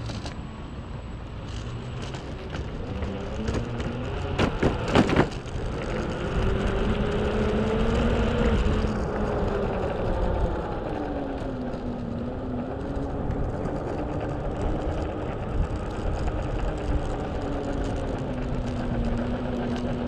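Mototec 600W electric skateboard's motor whining as it rides, its pitch slowly rising and falling with speed, over a steady rumble of the airless rubber wheels on asphalt. A quick run of sharp knocks about four to five seconds in.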